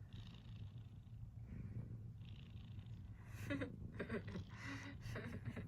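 Domestic cat snoring: a steady low rumble with a breathy hiss on the breaths, about every two seconds. Partway through come a few brief louder pitched sounds.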